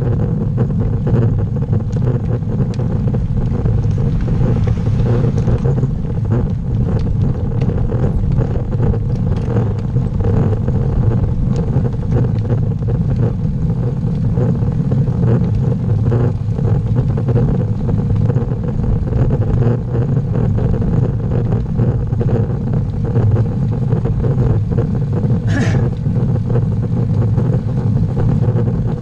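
Steady rumble of wind across the microphone and road-bike tyres rolling on asphalt while riding uphill. A brief high-pitched click or squeak stands out near the end.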